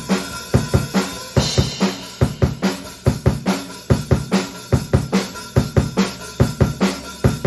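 Drum kit played solo with no backing track: a fast, steady beat of kick drum and snare hits.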